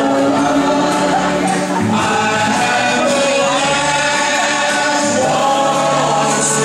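Recorded waltz music with singing voices, playing steadily with sustained notes.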